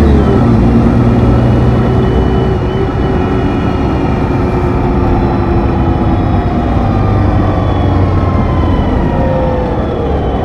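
Neoplan N4426/3 Centroliner bus's Mercedes OM 501 LA V6 diesel and Voith Diwa 864.3E automatic gearbox running under way, heard close up at the gearbox hatch inside the bus. The engine note drops in pitch right at the start, and a gear whine slowly falls in pitch through the rest.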